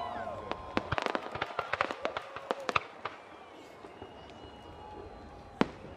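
Aerial firework shells bursting: a rapid, irregular run of sharp bangs and crackles for the first three seconds, thinning to a quieter lull, then one loud bang near the end.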